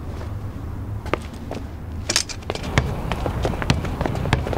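Footsteps on hard ground: a run of irregular taps and knocks, quickening after about two and a half seconds, over a low steady hum.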